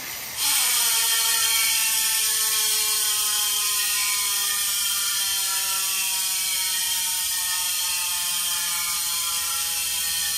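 DT Swiss hub's 36-tooth Star Ratchet freehub buzzing as the Bontrager Aeolus RSL 51 rear wheel coasts after being spun up. It is a loud, rapid clicking buzz that starts abruptly about half a second in and slowly drops in pitch as the wheel slows.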